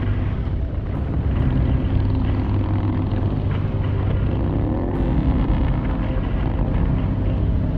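Harley-Davidson motorcycle engine running steadily at cruising speed, heard from the bike itself with wind and road noise over the microphone.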